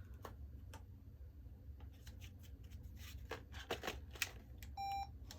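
Scattered clicks and rattles of a camcorder and its battery being handled, then a short electronic beep near the end as the Sony PD150 camcorder powers on.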